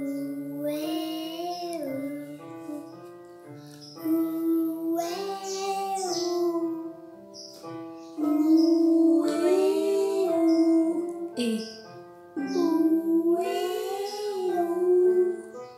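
A young girl singing vocal warm-up exercises on vowels, four phrases that glide up and down in pitch with short pauses between them, over a piano accompaniment.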